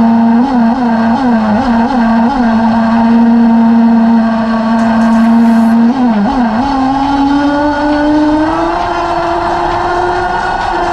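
Nitro (glow-fuel) engine of an RC buggy running with several quick throttle blips in the first couple of seconds, then holding a steady note. About six seconds in it dips briefly, then revs up gradually as the buggy pulls away.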